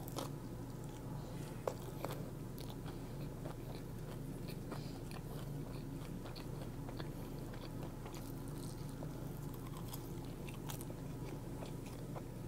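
Close-miked chewing and crunching of crispy Popeyes fried food, with many small irregular crunches and mouth clicks.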